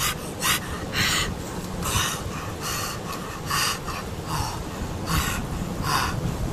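A man breathing hard through his open mouth, about ten short hissing breaths in and out, from the burn of the siling labuyo (bird's eye) chilies he has eaten.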